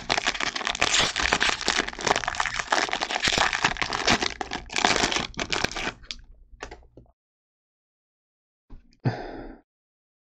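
Foil wrapper of a trading card pack crinkling and crackling as it is torn open and pulled off the cards. The crackle runs densely for about six seconds and then tails off, with one short burst of rustling about nine seconds in.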